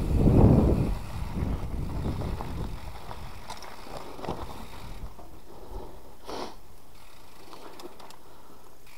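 Mountain bike riding on a dirt trail, heard through an action camera: wind on the microphone and tyre rumble, loudest in the first second, easing to a steadier, quieter hiss from about three seconds in, with faint clicks and one short louder sound about six seconds in.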